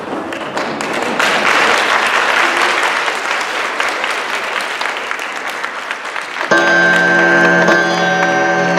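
Theatre audience applauding in a blackout between scenes; about six and a half seconds in, music starts suddenly with held notes.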